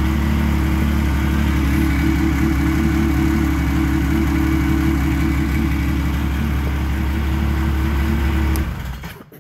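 Yamaha four-stroke snowmobile engine idling steadily just after being started, then shut off near the end, its sound dying away.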